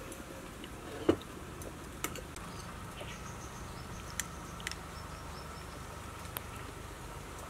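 Chopsticks knocking against a ceramic soup bowl: one sharp click about a second in, then a few lighter clicks spread through the rest, over a faint steady tone in the background.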